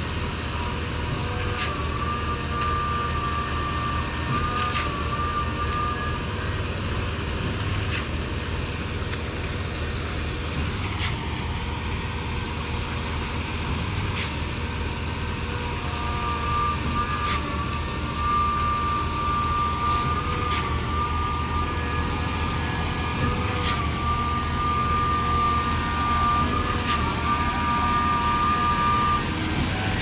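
Truck-mounted concrete boom pump running steadily while pumping concrete, its engine droning with a high whine that comes and goes. A sharp knock comes about every three seconds as the pump strokes.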